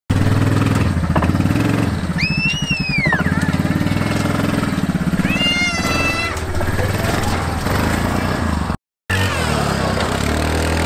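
Quad bike engine idling steadily. Two short high-pitched cries sound over it: one rising and falling about two seconds in, another about five seconds in.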